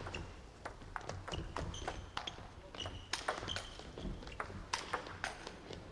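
Celluloid table tennis ball in a fast rally, struck back and forth off rackets and bouncing on the table. It makes a quick, irregular run of sharp clicks, several a second, each with a brief ringing ping.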